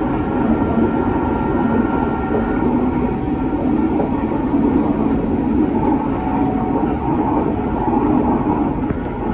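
Rail vehicle running past a level crossing, a steady loud rumble, with a thin high whine that stops about two and a half seconds in.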